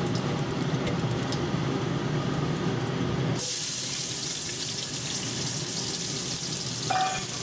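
Gas burner rumbling under a wok of very hot oil, with a few faint crackles. About three and a half seconds in, sliced garlic hits the oil and it breaks at once into a steady hissing sizzle: garlic frying in oil heated almost to scorching.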